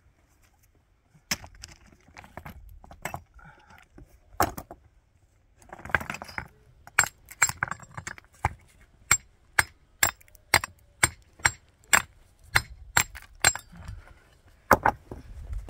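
Hammering: sharp metal-on-hard strikes with a ringing edge. A few come at uneven gaps, then from about seven seconds in they settle into a steady beat of about two blows a second.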